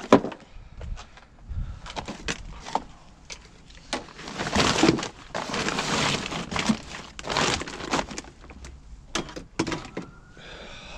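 Rummaging through discarded household rubbish: an irregular run of knocks and clatters, with longer bursts of rustling a few seconds in as bags and items are pulled about.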